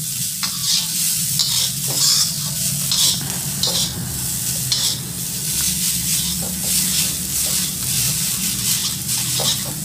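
Fried rice sizzling in a wok over a high flame while a metal spatula scrapes and tosses it in repeated strokes, under a steady low hum.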